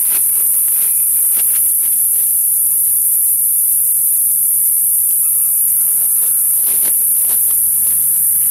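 Steady, loud, high-pitched insect drone, with the crinkly rustling of a woven plastic sack being opened and handled during the first couple of seconds and again about seven seconds in.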